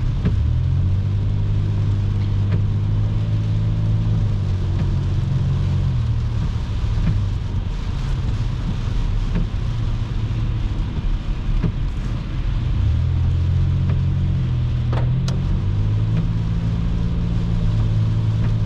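Car cabin noise while driving on a wet freeway: a low engine and road drone with a hiss of tyres on wet pavement. The drone fades for several seconds in the middle and comes back.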